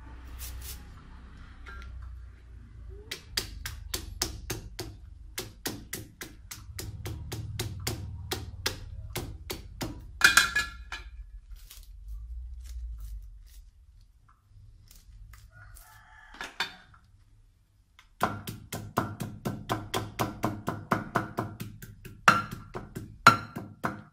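Cleaver chopping lemongrass on a thick wooden chopping board: quick knocks, about four a second, in two runs with a pause between.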